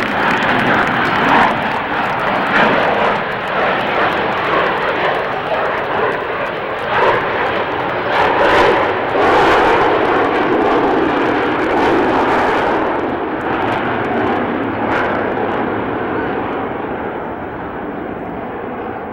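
Jet noise of a B-52 bomber's eight jet engines as it makes a low pass, loudest about nine seconds in, then fading steadily as the bomber banks and climbs away.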